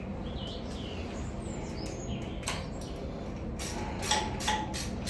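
A few faint bird chirps, then, about three and a half seconds in, a hand ratchet starts clicking in quick, even strokes, about four clicks a second, as a jubilee hose clip is tightened.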